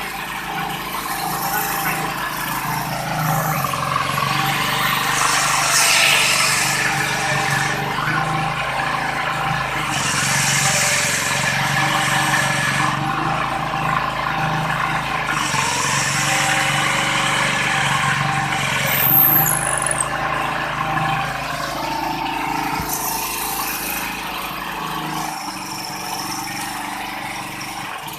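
Small generator-set engine running on biogas, a steady engine drone whose pitch and loudness shift several times.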